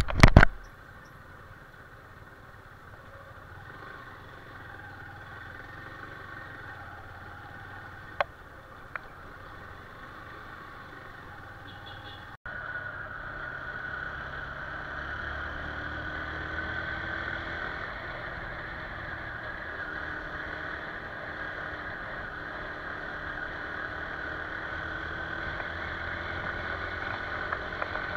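Motorcycle engine running steadily while riding, mixed with road and wind noise. There is a loud knock right at the start and two small clicks a few seconds later. About twelve seconds in the sound cuts suddenly, and after the cut the ride is louder.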